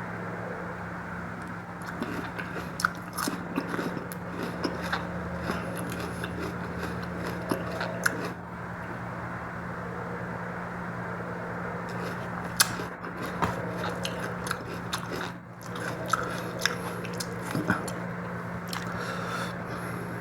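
Close-up chewing and biting of mutton curry and rice, with scattered short wet clicks and smacks of the mouth and the odd crunch, over a steady low hum.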